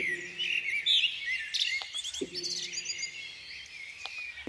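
Birdsong sound effect: many small birds chirping and twittering at once in a busy morning chorus, with quick overlapping calls.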